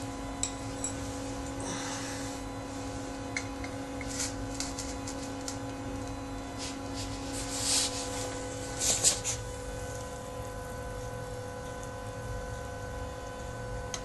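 Steady electrical hum with a few light clicks, then brief scraping and rustling as metal tongs grip and lift a refractory crucible of molten aluminium.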